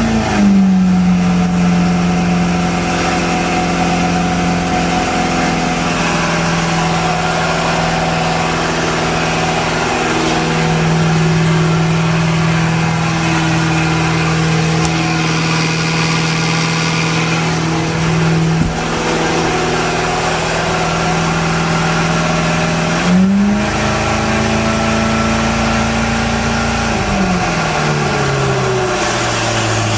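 Mercury MerCruiser 5.7-litre V8 boat engine running after a jump start, settling to a steady fast idle just after the start. About 23 seconds in the engine speed rises briefly, then drops back to a lower, slower idle near the end.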